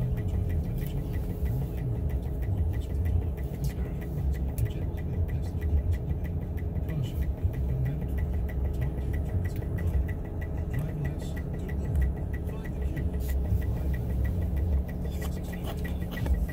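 Car engine idling steadily, heard from inside the cabin as a low rumble, with a faint quick regular ticking running through it.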